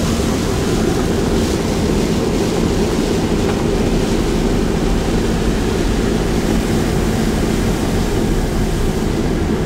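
Steady rumble of a vehicle's engine and tyres running on a wet road, heard from inside the cab.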